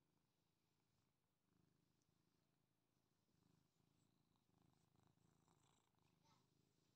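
British Shorthair cat purring faintly and steadily while being stroked. Soft brushing of fur comes in the second half as the cat rubs up close.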